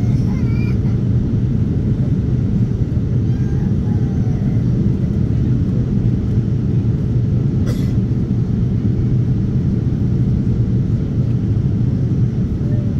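Steady, loud low cabin noise of an airliner in descent, heard inside the passenger cabin: jet engine and airflow noise. A brief click sounds about eight seconds in.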